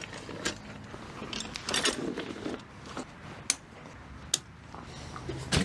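A folding camp chair being opened out: scattered clicks and clatter from its metal frame, with rustling from its fabric seat.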